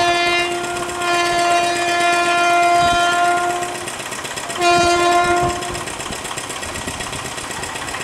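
Horn of an Indian Railways WAP-7 electric locomotive: one long steady blast of about four seconds, then a short blast about a second later, over the running noise of the approaching train.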